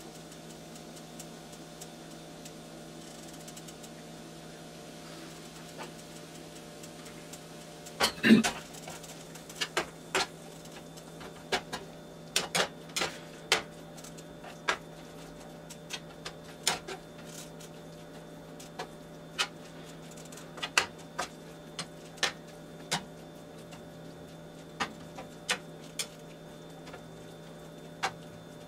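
Spatula knocking and scraping against a nonstick frying pan while breaking up ground venison as it browns, in sharp irregular taps about one or two a second that start about eight seconds in. A steady low hum runs underneath.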